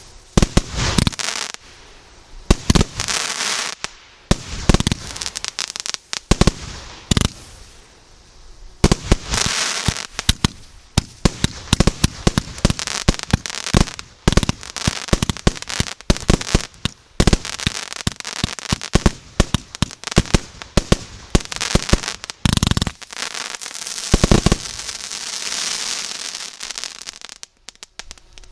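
Firework battery (the 'Treasure Island' MB154 cake) firing shot after shot: a rapid string of sharp bangs, with stretches of dense crackling hiss between them. It stops abruptly near the end as the cake burns out.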